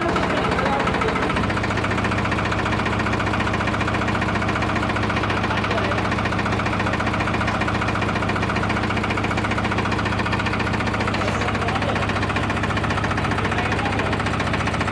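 Tractor engine running steadily with a fast, even chugging, holding the same speed throughout; a low steady hum settles in about a second and a half in.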